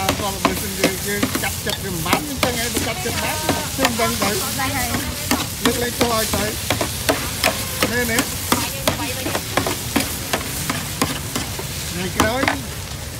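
Food stir-frying in a pan over a steady sizzle, with a utensil striking and scraping the pan in quick, irregular clinks.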